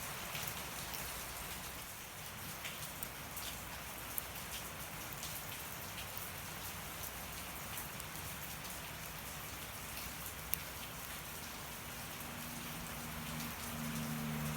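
Steady rain falling, with scattered sharp crackles from a wood fire burning, two louder pops among them. A low steady hum comes in near the end.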